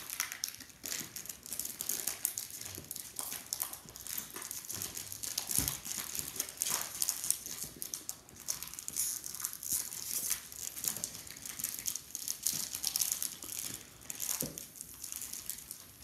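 Clear plastic wrapping crinkling as it is peeled and pulled off a small cardboard cube box: a continuous run of irregular crackles.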